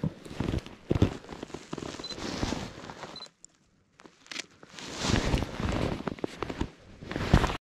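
Close handling noise on a body-worn action camera: jacket fabric rustling and irregular knocks and crackly clicks as the wearer's arms and hands move a camera about. It drops out briefly a little past three seconds and cuts off suddenly near the end.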